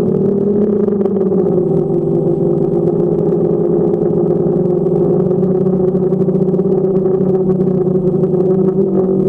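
Quadcopter drone's propellers and motors humming steadily in flight. The pitch settles just after the start and then holds nearly constant.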